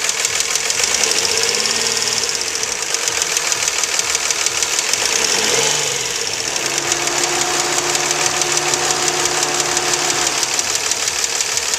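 2004 Nissan Maxima's 3.5-litre VQ V6 being revved with short blips that rise and fall, then held at a steady higher speed for a few seconds before dropping back, with a rapid ticking running under it that the owner takes for lifter or valve noise from the upper valve train.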